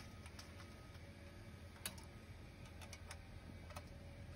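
A few light, sharp clicks over a faint low background hum, from the mill's sheet-metal lid and perforated steel sieve screens being handled. The mill itself is not running.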